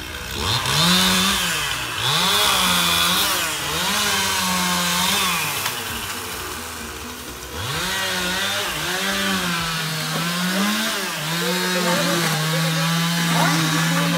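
Chainsaw engine revving in repeated bursts as it cuts, its note rising and falling several times. It drops back to a lower, quieter idle about halfway, then revs up again and holds a steady high note near the end.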